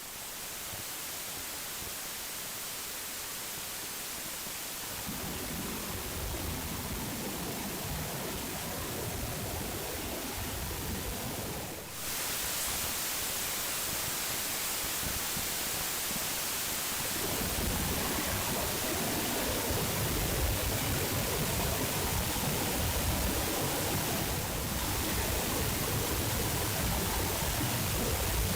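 La Fortuna Waterfall: a steady rush of heavy falling water. A deeper rumble builds about five seconds in and again after about seventeen seconds, with a brief dip about twelve seconds in.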